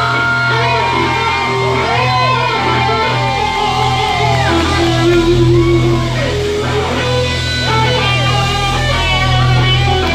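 Live R&B/funk band playing: electric guitar over keyboards and a steady deep bass.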